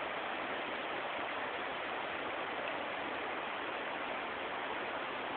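Rushing water of a fast-flowing mountain stream running high with spring snowmelt: a steady, even rush with no breaks.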